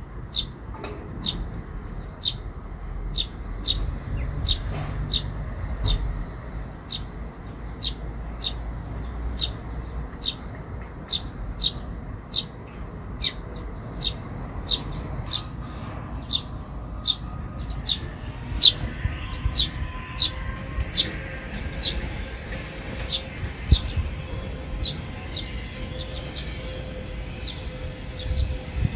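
Eurasian tree sparrow fledgling begging: a steady run of short, high chirps, about two a second.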